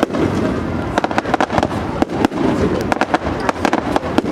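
Aerial fireworks display bursting in a rapid, irregular string of sharp bangs, several a second, over a continuous crackling din.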